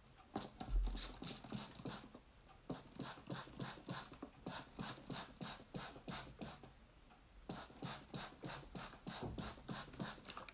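Hand spray bottle squirted again and again, wetting wool under a felting mesh: runs of short hissing squirts, about four a second, broken by brief pauses.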